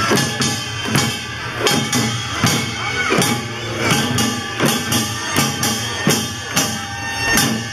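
Korean pungmul (farmers' band) percussion music: drums played in a steady, driving rhythm, with a strong beat a little more than once a second and lighter strokes in between.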